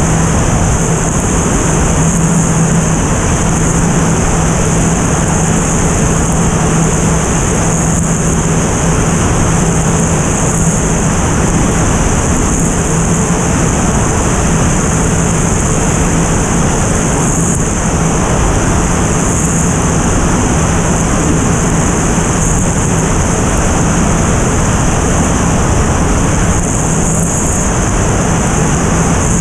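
Single-engine propeller airplane in steady level flight, heard from a camera on the outside of its tail: a constant rush of wind over the microphone, with a steady engine and propeller drone beneath it.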